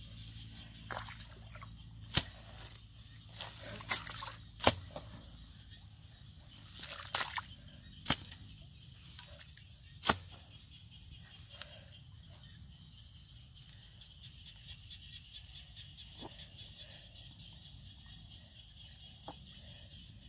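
Metal-handled hoe chopping into a wet mud bank: about six sharp strikes in the first half, then the strikes stop.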